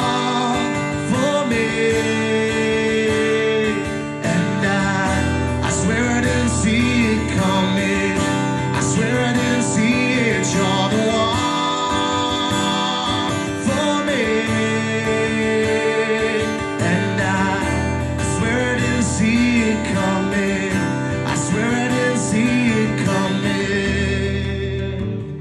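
Live acoustic guitar strummed steadily, with a man's voice singing along over it.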